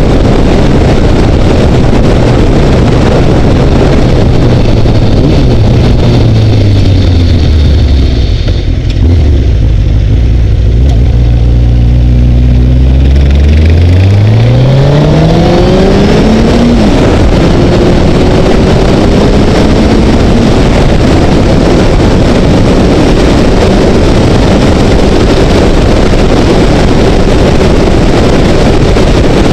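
Honda CBR900RR's inline-four engine heard under wind rush on a helmet camera. The engine note drops as the bike slows about six seconds in and holds low for a few seconds. About halfway in it revs up steeply as the bike accelerates hard, and the wind noise then covers it again.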